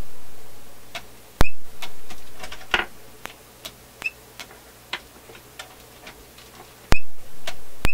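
Sharp clicks from the controls of a Heath Company capacitor checker as it is stepped through its leakage test, each click followed by a short sound that dies away. Between the clicks comes a fainter, even ticking, about three ticks a second.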